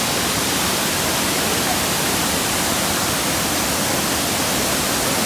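Steady, loud rush of falling water from a nearby waterfall.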